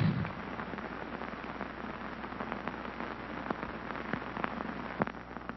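Steady hiss of an old film soundtrack with scattered clicks and pops, a few sharper ones near the end.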